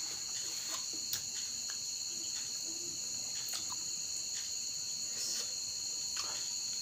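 Crickets chirping in a steady high-pitched drone, with a few faint snaps as a raw water spinach stalk is stripped and broken by hand.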